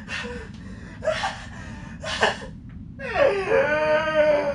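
A young man laughing uncontrollably: three sharp, breathy gasps about a second apart, then a long, high, drawn-out laugh starting about three seconds in.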